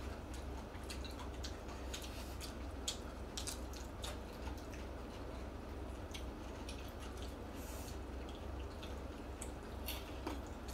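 Close-miked eating of jjamppong noodles: wet chewing and slurping with scattered sharp clicks, over a low steady hum.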